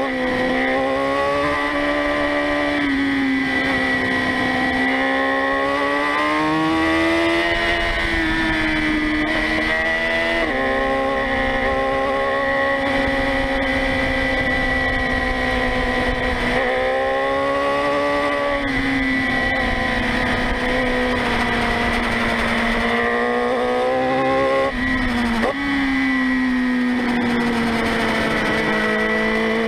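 Motorcycle engine heard from a camera mounted on the bike while riding through curves, its pitch rising and falling with the throttle and dropping or jumping suddenly a few times at gear changes. A steady high whine runs over it.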